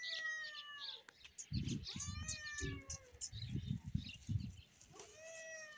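Tabby cat meowing: a drawn-out call at the start, a shorter one about two and a half seconds in, and another drawn-out call near the end, with low muffled rumbling in between.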